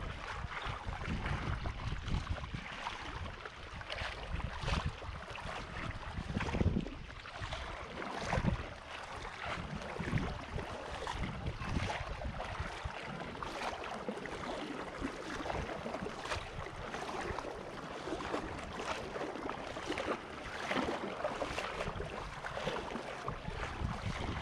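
Strong, gusty wind buffeting the microphone, in uneven low rumbles over a steady rush of wind and waves.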